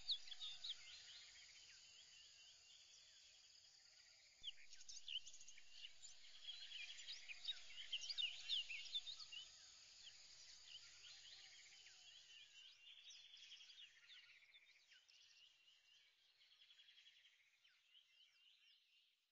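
Faint chorus of bird chirps and quick trills, busiest in the middle and fading out near the end.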